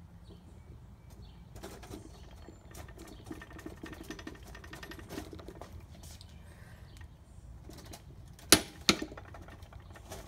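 Ratchet head of a Snap-on click-type torque wrench ticking rapidly through tightening strokes, then two loud sharp clicks about half a second apart near the end: the wrench clicking over at its 60 foot-pound setting.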